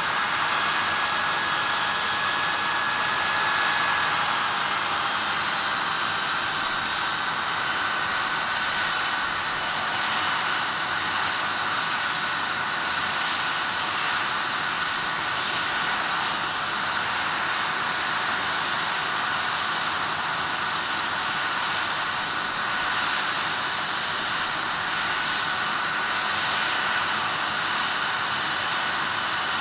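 Rolls-Royce Spey turbofan engine of a Hawker Siddeley Nimrod running on the ground: a steady rushing jet noise with a high compressor whine over it. The whine eases slightly lower in pitch over the first several seconds, then holds steady.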